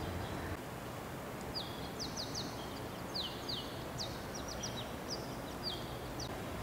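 A small bird chirping: a dozen or so short, high notes, most sweeping down in pitch, between about one and a half and six seconds in, over steady background noise. A low hum stops about half a second in.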